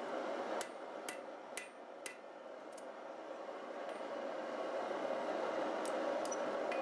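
Hand hammer striking a hot forged steel S hook on the anvil face with light metallic ringing: about five blows roughly half a second apart, a pause, then two more near the end. A steady rushing background noise runs under the blows.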